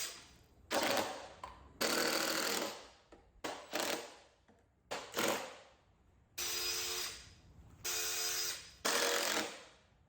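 Power drill running in about nine short bursts, each under a second, drilling 3/16-inch pilot holes into a 4x4 wooden leg.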